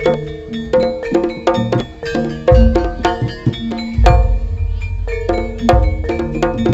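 Instrumental Javanese gamelan-style accompaniment: struck tuned metal percussion ringing on steady notes over brisk kendang hand-drum strokes, with a deep low boom coming in about two and a half seconds in and again at four seconds.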